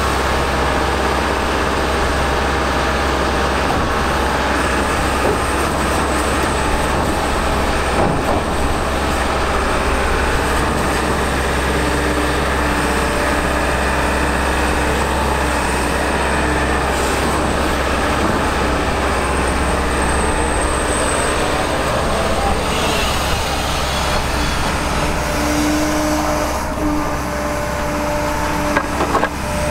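Kobelco SK210LC excavator's diesel engine and hydraulics running steadily as the machine works on a soil heap, with occasional metal clanks. A steady tone joins in over the last several seconds.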